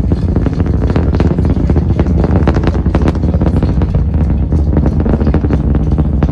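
Falcon Heavy's 27 Merlin 1D engines heard from miles away: a loud, steady deep rumble full of sharp crackling.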